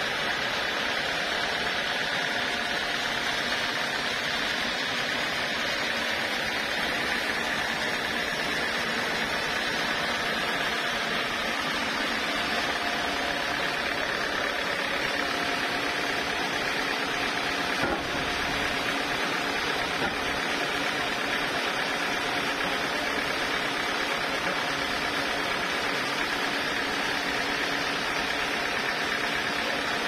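Band sawmill running steadily, its motor and blade making an even mechanical hum, with a light knock about eighteen seconds in and another two seconds later.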